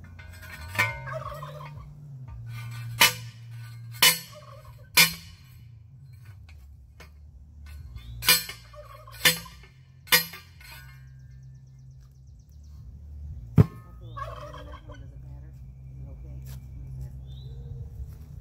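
Heavy metal strikes, a post driver hammering a steel T-post, coming in groups of about one a second with gaps between, the last one the loudest. A bird calls now and then between the strikes.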